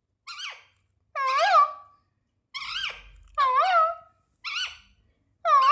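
Ringneck parrot calling: a string of about six short, high squawks, roughly one a second, each bending up and back down in pitch.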